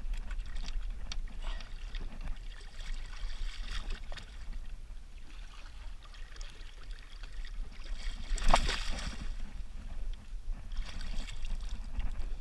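Sea water splashing and sloshing against the side of a boat as a smoothhound shark is held in the water by hand and let go, with one louder splash about eight and a half seconds in.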